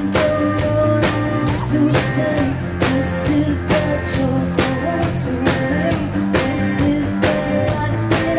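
Live rock band playing an up-tempo song: a drum kit keeps a steady beat of about two hits a second under bass and guitar.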